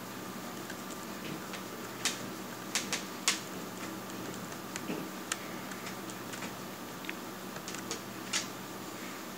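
Dell Latitude D630 touchpad buttons clicking: several short, sharp, irregular clicks in two clusters, one a couple of seconds in and one near the end, over a faint steady hum.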